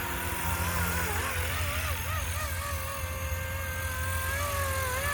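Blade 235 CP collective-pitch RC helicopter in flight: its motor and rotor whine wavers up and down in pitch as throttle and pitch change, over a low steady rumble.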